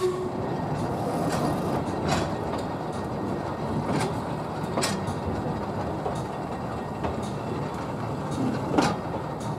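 Talyllyn Railway narrow-gauge train running along the track: a steady rolling rumble with a few sharp clicks of the wheels over rail joints.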